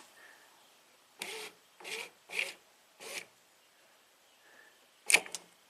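1991 Ford Probe's motorized automatic seat belt running along its door-frame rail, driven backwards by reversed motor wires, in four short bursts, followed by a sharp click near the end.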